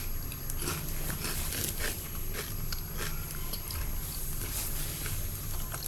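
Fidget spinners being handled: scattered light clicks and rustles over a steady low hum.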